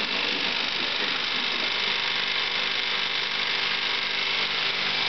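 1989 LOMO Ukraine-7 16mm film projector running steadily, its film transport mechanism giving an even mechanical whir with a steady hum.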